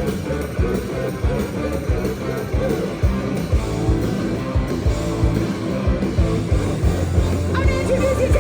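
Live rock band playing: electric guitar over a steady drum beat, with a wavering voice-like line coming in near the end.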